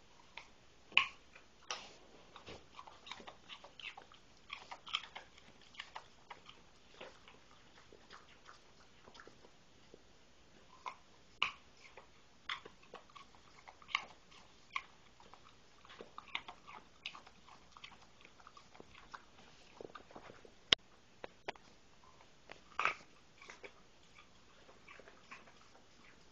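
Chewing and crunching: irregular short clicks and crunches, with a few sharper, louder snaps among them.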